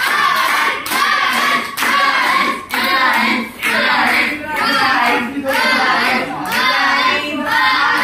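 A group of children chanting in a steady rhythm, about one phrase a second, with hands clapping along.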